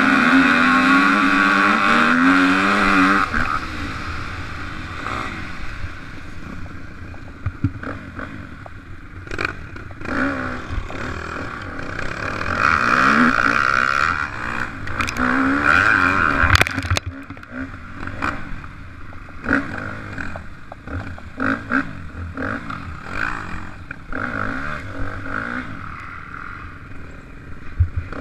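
Dirt bike engine heard from on board the bike, revving up through the gears in the first few seconds, then rising and falling with the throttle, with loud surges of acceleration about halfway through. Sharp knocks and rattles from the bike over rough ground come in between, the strongest about 17 seconds in.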